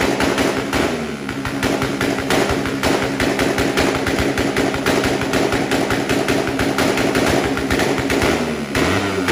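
Motorcycle engine revved through a loud exhaust pipe, held at high revs with a rapid, even stream of exhaust pulses. It drops back briefly near the end and then rises again.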